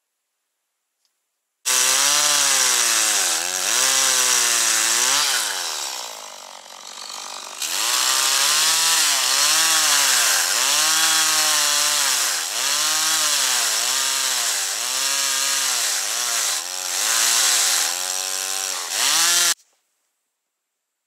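Two-stroke chainsaw cutting slots into an upright log, its engine pitch dropping again and again as the chain bites into the wood and rising as it frees. It starts about two seconds in, eases off briefly around the middle, revs back up and cuts off shortly before the end.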